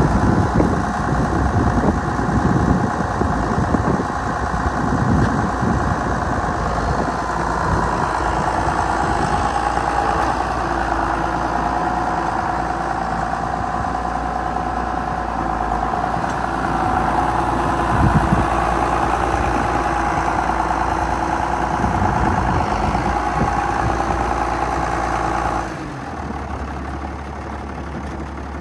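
John Deere 7210 tractor's six-cylinder turbo diesel running steadily at idle. About 26 seconds in, the sound abruptly drops lower and quieter.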